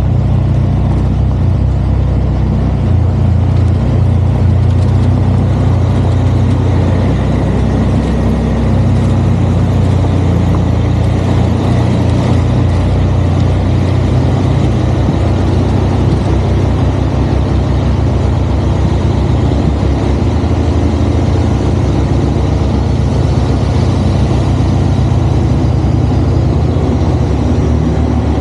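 Kenworth C500 truck's Cummins ISX diesel engine running at a fairly steady speed, a deep, even drone with no break.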